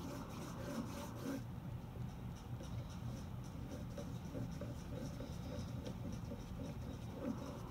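Paintbrush swept back and forth across paper in long strokes, a soft repeated scratchy rubbing, as wet purple and red paint are blended where the two colours meet.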